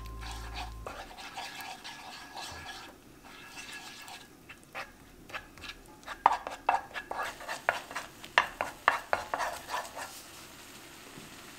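Wooden spoon stirring thick gochujang sauce in a nonstick frying pan: soft scraping at first, then from about six seconds in a quick run of sharp taps and clicks of the spoon against the pan.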